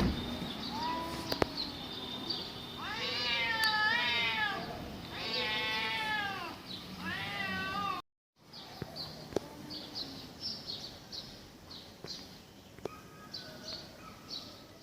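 Domestic cats yowling at each other in a fight standoff: two long, wavering yowls that rise and fall, back to back in the first half. About halfway through the sound cuts off briefly, and after that it is quieter, with faint, quick, high chirps.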